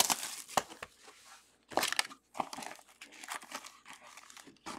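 Cellophane shrink-wrap crinkling and tearing as it is pulled off a box of trading cards, then foil card packs rustling as they are handled. Irregular crackles throughout, loudest about two seconds in.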